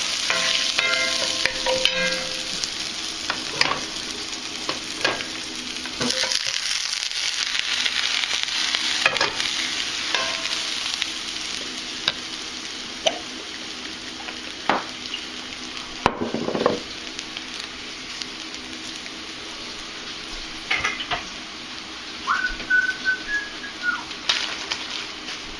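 Food sizzling in a hot frying pan while being stirred, with occasional knocks of a utensil against the pan. The sizzle slowly dies down, and there is a brief high tone near the end.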